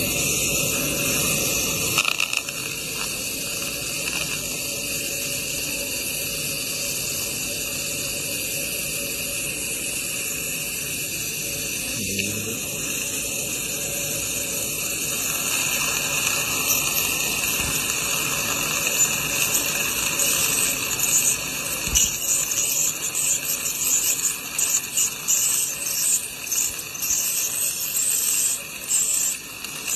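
Dental scaling of heavy tartar: the ultrasonic scaler's water spray and the suction tip give a steady high hiss. In the second half it turns choppy and uneven as the suction draws in water.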